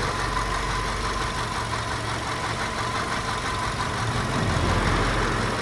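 Volkswagen Golf Mk5 engine idling steadily with the knocking noise that is being diagnosed.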